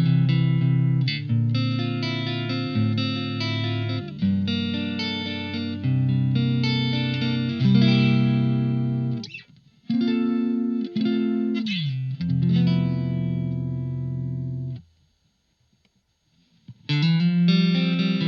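Electric guitar played through a Blackstar ID:Core Stereo 40 amplifier: sustained, ringing chords, with a falling slide in pitch about eleven seconds in. The playing stops for about two seconds near the end, then starts again.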